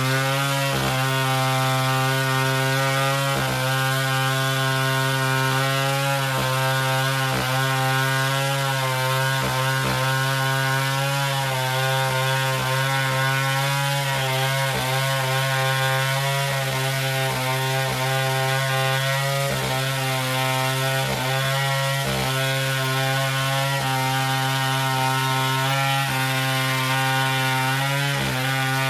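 Chainsaw running steadily throughout, its pitch dipping briefly every few seconds.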